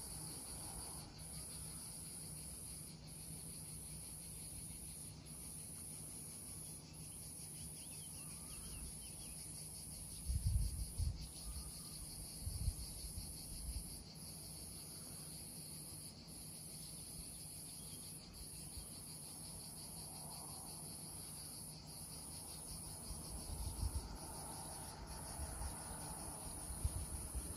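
A steady, high-pitched insect chorus, continuous through the whole stretch. A few brief low rumbles come about ten seconds in and again near the end.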